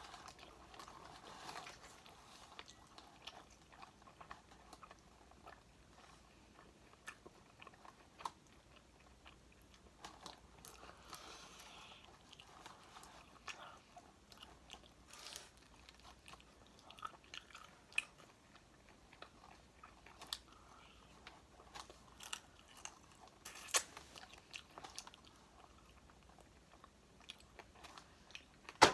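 Close-up biting and chewing of crispy fried chicken wings: irregular crunches and chewing sounds, with a few sharper crunches, the loudest about 24 seconds in and at the very end.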